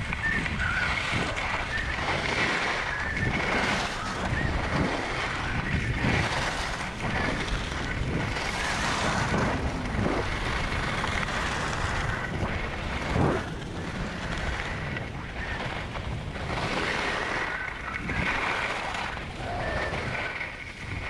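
Wind rushing over a body-worn action camera's microphone as a skier descends, mixed with the scrape of skis carving on packed snow. The noise swells and eases with each turn.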